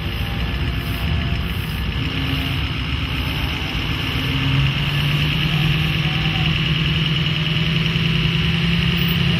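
Diesel pickup truck's engine idling as the truck rolls slowly by, a steady low engine sound that grows a little louder about halfway through.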